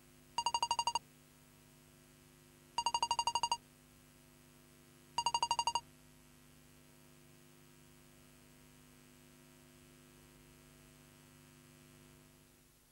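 Electronic beeping sound effect: three short bursts, each a quick run of about eight high beeps, roughly two and a half seconds apart, as the lines of an on-screen statistics card appear. A faint steady hum runs underneath.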